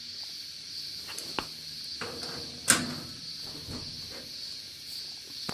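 Steady high insect chirring, like crickets, with a few light knocks and clicks over it. The loudest knock comes about two and a half seconds in.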